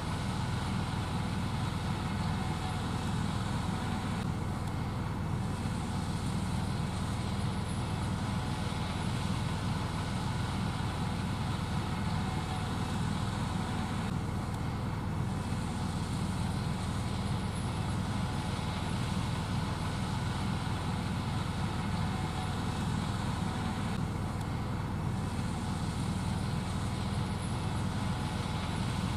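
Gleaner S78 combine running steadily under load while harvesting corn, a constant low machine drone.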